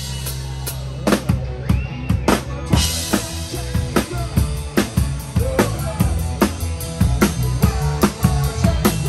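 Live rock band playing, picked up right at the drum kit: kick drum, snare and cymbals over a bass line and guitar. The drumming fills out into a busy, steady beat about three seconds in.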